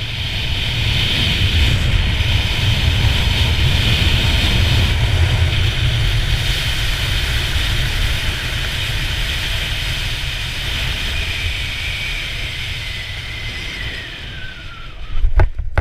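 Wind rushing and buffeting over a helmet camera's microphone during a parachute descent under an open canopy, easing off gradually as the canopy slows near the ground, with a faint whistle that slides down in pitch. About fifteen seconds in come a few sharp knocks as the skydiver touches down on grass.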